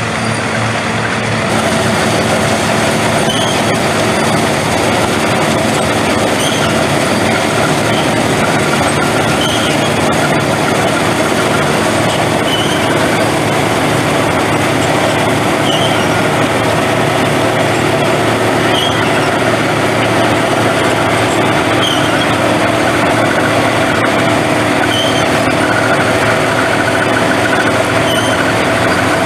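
Old self-propelled combine harvester running steadily while threshing grain: a loud, even mechanical noise of engine and threshing works, with a short high squeak repeating about every three seconds.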